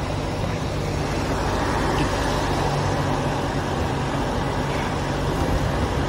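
Mahindra Bolero Neo's three-cylinder diesel engine running steadily on the move, with the road and wind noise of driving.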